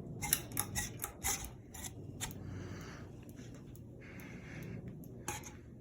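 Hunter Savoy ceiling fan running on low speed with a faint, steady motor hum. Irregular light clicks and rubbing sounds come over it, several in the first couple of seconds and one near the end.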